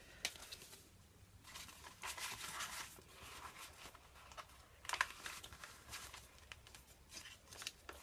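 Faint rustling and sliding of paper and card as a handmade junk journal's envelope, card and flip page are handled, with one sharp tap about five seconds in.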